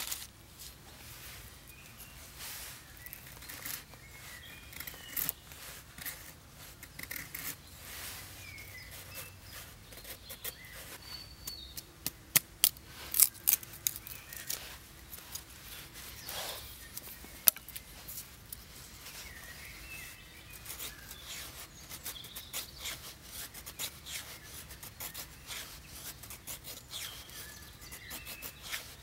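Knife blade shaving thin curls down a dry wooden stick to make a feather stick: repeated short scraping strokes, a few of them sharp and loud near the middle. Birds chirp faintly in the background.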